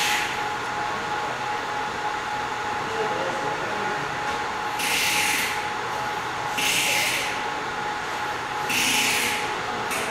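ZM-R720 BGA rework station running with a steady fan noise and a thin steady tone. Short bursts of air hiss come about every two seconds, four times.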